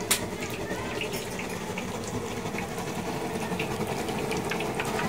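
Balls of brot goreng dough deep-frying in a wide pan of hot oil, a steady sizzle and bubbling. A sharp click of a spoon just at the start, and a few faint ticks after.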